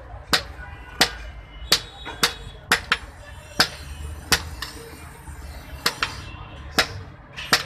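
Blacksmith's hand hammer striking a red-hot steel chopper blade on a steel anvil block, forging it: sharp ringing strikes about one to two a second at an uneven pace, with a pause of over a second just past the middle.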